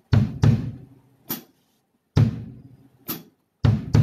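A drum kit played on its own in a slow beat: single and paired kick-drum hits alternate with a sharp snare hit about a second in and again near three seconds, with gaps between the strokes.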